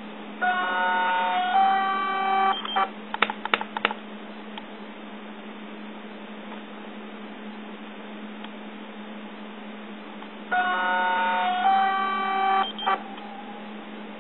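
Yongnuo YN568EX speedlite's zoom-head motor whining twice, each run about two seconds long, with the pitch stepping partway through as the head drives. This is a unit whose zoom motor the owner found making noises while stuck. A quick series of about five clicks follows the first run, over a steady low hum.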